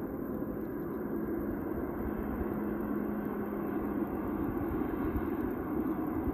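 Distant wide-body twin-engine jet airliner's engines running as it moves on the taxiway: a steady rumbling roar that slowly grows louder, with a steady hum that fades out about three seconds in.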